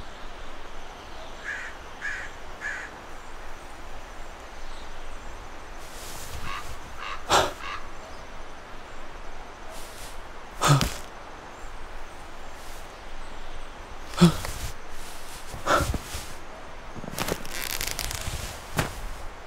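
A man shivering with cold, letting out a string of short, sharp gasps and breaths a few seconds apart; the loudest come around the middle. Three short high calls sound near the start.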